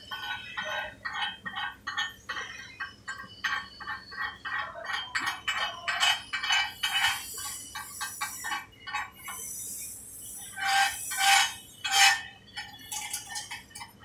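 Chipping hammer knocking slag off a vertical weld bead on a steel plate: quick light metal taps, about four a second, then a few harder strikes near the end.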